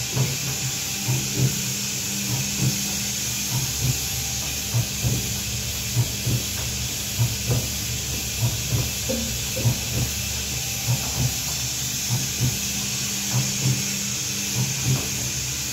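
Detergent powder mixer running: its electric motor and worm gearbox hum steadily while the agitator churns the powder in the stainless steel trough. There is a steady hiss, and soft thumps come about once or twice a second.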